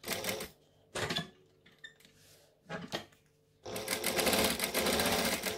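Industrial sewing machine stitching through layered vinyl, with rapid needle strokes in three short bursts of a few stitches each, then running steadily from about two-thirds of the way in.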